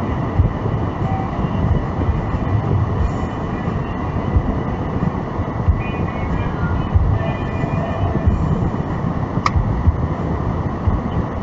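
Steady road and engine rumble heard inside a moving car's cabin, with a single sharp click about nine and a half seconds in.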